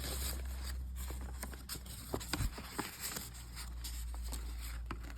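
Light rustling and handling of paper cards and envelopes, with a few short clicks about two to three seconds in, over a steady low hum.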